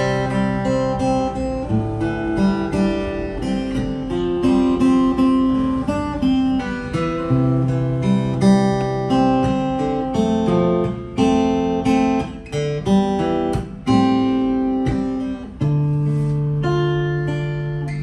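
JiazHuo cutaway acoustic-electric guitar played through its EQ preamp into a speaker, a continuous fingerstyle piece of plucked chords and melody notes over ringing bass notes.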